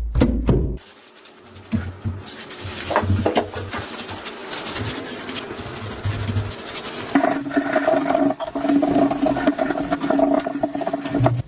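Workshop work sounds: knocks at the start, then scraping and rubbing with dull thuds. About seven seconds in, a small motor starts running at a steady pitch and cuts off suddenly near the end.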